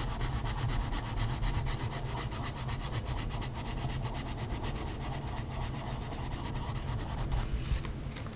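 Coloring on a coloring-book page: fast, even back-and-forth strokes rubbing on the paper, several a second, stopping about seven seconds in, followed by a couple of light knocks.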